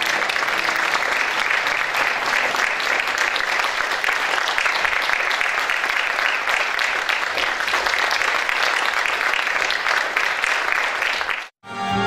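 Theatre audience applauding steadily for the actors' curtain-call bows. The applause cuts off abruptly near the end, where music begins.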